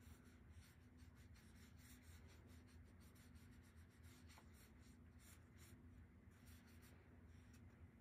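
Near silence: faint repeated strokes of a paintbrush brushing watercolor paint across paper, over a low steady room hum.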